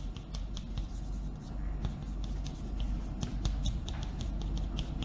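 Chalk writing on a blackboard: quick, irregular taps and short scratches of the chalk, over a low steady hum.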